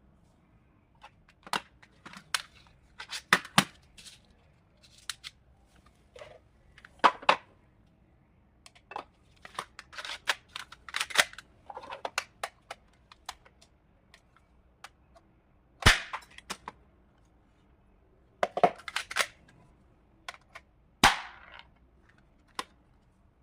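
Full-metal Colt 1911 airsoft BB pistol being worked: a string of sharp metallic clicks and snaps at irregular intervals, the loudest two about sixteen and twenty-one seconds in.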